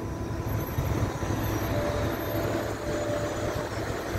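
Steady low hum of a ship's machinery under a constant rushing noise, with no sudden sounds.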